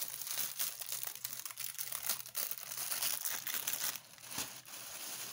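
Clear plastic packaging on kitchen utensils crinkling and rustling as it is handled, in many small crackles that ease off a little near the end.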